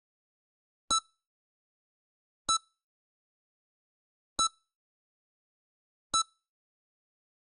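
Heart-rate (EKG) monitor beeping: four short, high electronic beeps, one every couple of seconds, with silence between them.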